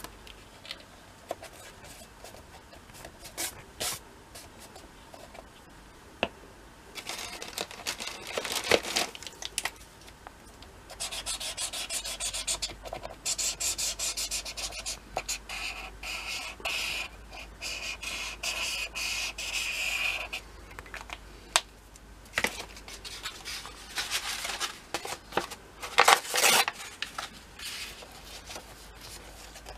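Felt-tip marker scratching across sketchbook paper in quick, rapid strokes, with paper being rubbed and pressed flat by hand between bouts of drawing.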